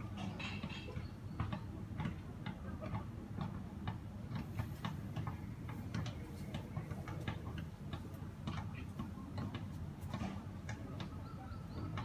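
Irregular light ticking clicks, several a second, over a low steady hum.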